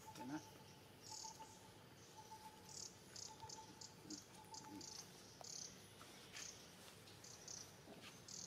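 Faint insect chirping outdoors: a long series of short high chirps of uneven length, with a thin steady tone that comes and goes. A few faint short calls are heard, including one at the very start and two about four seconds in.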